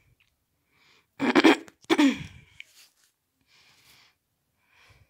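A person sneezing: two loud, sudden bursts in quick succession, about a second in.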